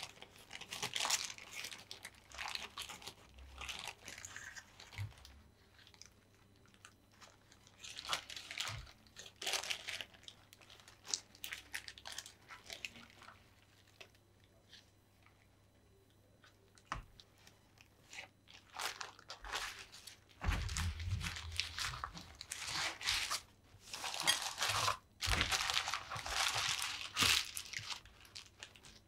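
Baking paper crinkling and rustling in bursts as hands roll a herb kuku sheet up into a log inside it, with a quieter spell midway and a few dull bumps about two-thirds through.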